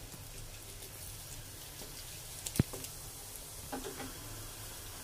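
Crinkle-cut potato fries deep-frying in hot oil in a karahi: a steady low sizzle with scattered small pops, and one sharp click a little past halfway.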